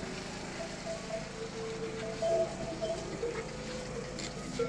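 Metal neck bells on a herd of camels clanking on and off as the animals move about, a little louder a little over two seconds in.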